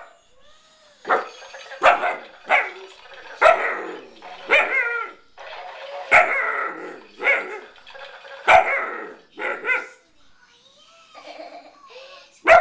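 Alaskan Malamute puppy barking and yipping over and over, about one bark a second, with the barks stopping about ten seconds in.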